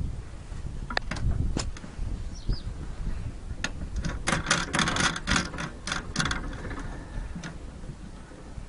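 Metal clicking and rattling as a chainsaw is bolted onto a frame: a few single clicks, then a quick run of clicks for about two seconds in the middle, over a low rumble.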